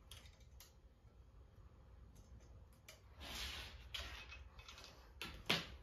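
Cable being handled and pressed into small plastic clips on a laser engraver's frame: scattered light clicks and a brief rustle of wire, with one sharp click near the end.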